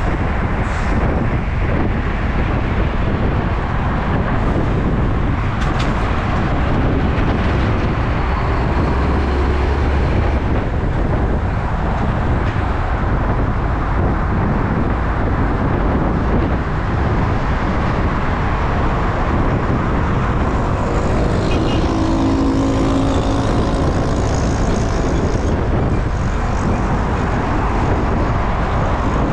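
Loud steady rush of wind and road noise on a handlebar-mounted camera, from a road bicycle at about 46–47 km/h with car traffic alongside. Around 22 seconds in, the pitched tone of a passing vehicle's engine rises above it.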